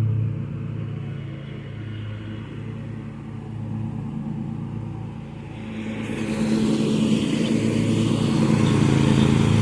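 Zero-turn riding lawn mower's engine running steadily, a low even hum that grows louder, with more hiss, about six seconds in.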